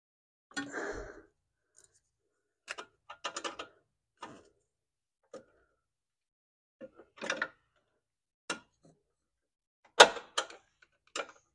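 Irregular clicks, clinks and knocks of hand tools and small metal fittings being handled while earth straps are fitted in a car's engine bay. The loudest is a sharp knock about ten seconds in.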